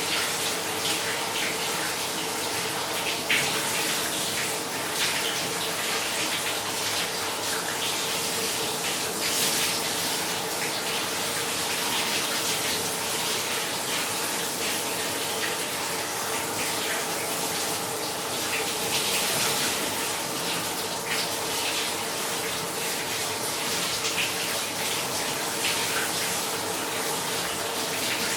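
Shower running steadily: a constant hiss of spray splashing down, with a few brief louder splashes and a faint steady tone underneath.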